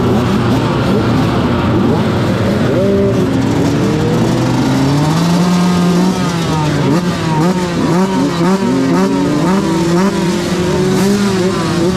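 Several motocross bike engines, two-strokes among them, idling together on the start line with quick throttle blips. The revs rise and fall repeatedly from about six seconds in.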